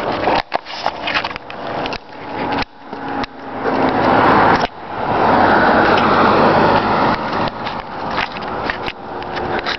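Wind buffeting and handling noise on the microphone, with sharp knocks and two long gusts. Underneath, a 1973 Federal Signal 2T22A outdoor warning siren wails faintly as a single steady tone; the owner thinks its high-end intake sounds blocked.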